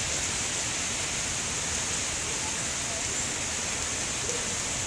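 Steady rainfall: an even hiss of rain coming down, with no distinct splashes standing out.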